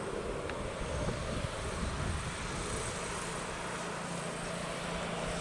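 Boeing 737 airliner's jet engines running at low power as it rolls along the runway, a steady distant rumble, with a faint steady hum joining about halfway through.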